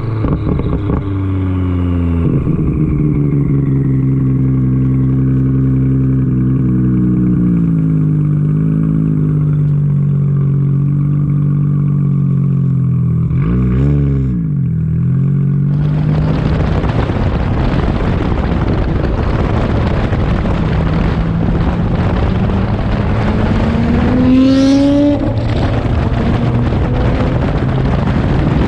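Turbocharged sports car engine running at a steady low pitch, blipped up and back down once about halfway through. Then a loud rushing noise comes in suddenly as the engine note climbs, with a quick sharp rise in pitch near the end.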